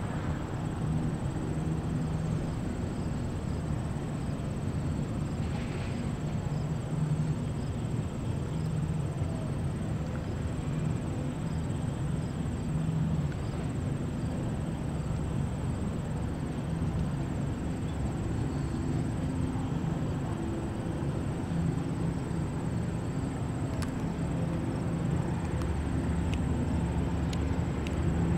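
Boeing B-29 Superfortress's four Wright R-3350 radial piston engines running at high power on the takeoff roll: a steady low drone that grows a little louder near the end as the bomber lifts off.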